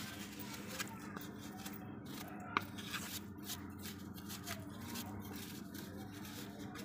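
Faint rubbing of a cloth wiped over a motorcycle's front sprocket guard during cleaning with diesel, with a single sharp click about two and a half seconds in.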